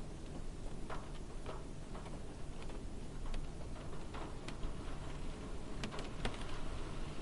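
Light rain heard from inside a car: scattered raindrops tick sharply and irregularly on the roof and glass over a steady low hiss and rumble.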